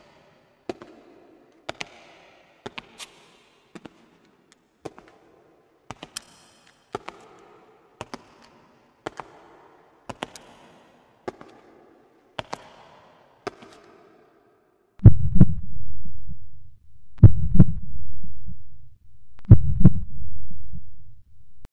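Sharp clicks about once a second, often in close pairs. About fifteen seconds in they give way to loud, low, heartbeat-like thuds: each a quick double beat with a long rumbling tail, about two seconds apart.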